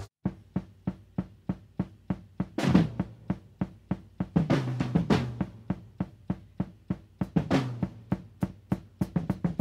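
Background music played on a drum kit alone: quick, even snare hits, about four or five a second, with heavier bass drum strokes mixed in.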